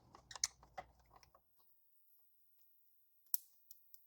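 Faint scattered clicks of an 8mm hex key working a bolt loose, then near silence broken by one sharp click about three seconds in and two faint ticks.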